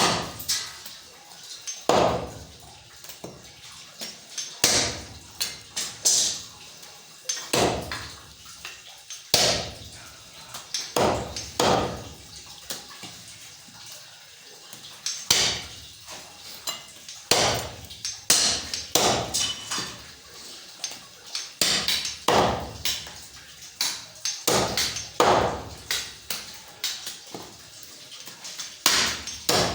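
A butcher's heavy blade chopping goat legs, giving a string of sharp, irregular strikes about every second or two, each with a short ring.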